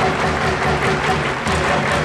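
Football supporters' player chant in a stadium: music with a steady beat, about four pulses a second, and rhythmic clapping from the crowd.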